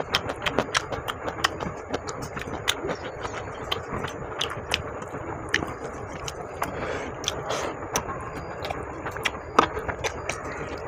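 Close-miked eating sounds: a hand squeezing and mixing rice with curry on a metal plate, with irregular sharp clicks and smacks of chewing.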